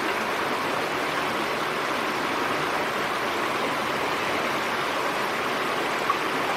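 Steady, even rushing noise with no rhythm, like rain or running water, that cuts off abruptly near the end.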